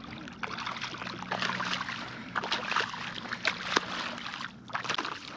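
Water splashing and sloshing irregularly as a big hooked ray thrashes at the surface in shallow water.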